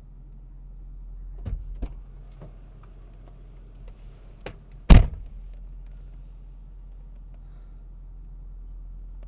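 Car door shut with one loud thud about five seconds in, after a few lighter clicks and knocks as someone gets into the driver's seat.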